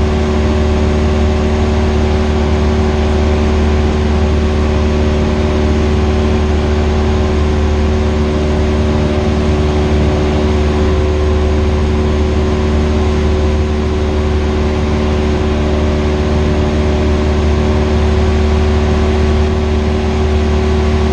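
Cessna 172R's four-cylinder Lycoming engine and propeller running steadily in flight, heard inside the cabin as a constant loud drone with a strong low hum.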